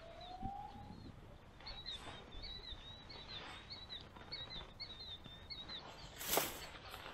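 Birds calling: a rising whistle at the start, then a quick series of high chirps. About six seconds in comes a short loud rustle of the tent's rain-fly fabric being handled.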